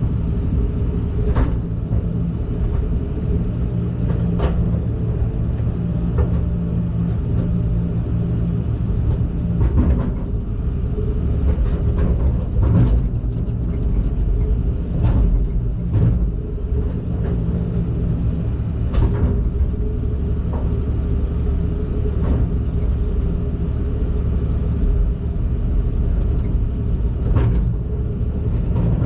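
Heavy diesel engine of a construction machine running steadily under load, with short knocks or clanks every few seconds.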